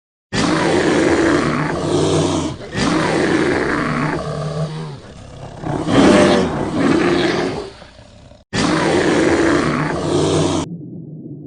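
A large animal roaring: about four deep, rough roars in a row, each starting and stopping abruptly, then a low rumble near the end.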